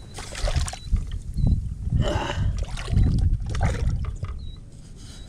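Water splashing and trickling in three short bursts at the river's edge, over a low wind rumble on the microphone.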